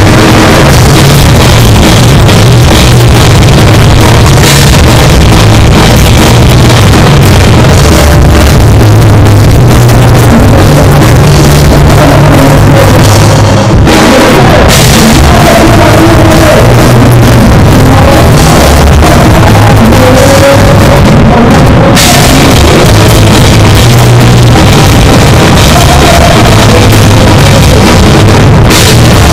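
Punk rock band playing loud live: a drum kit heard from right beside it, with electric guitars and bass, the highs dropping out briefly about halfway through.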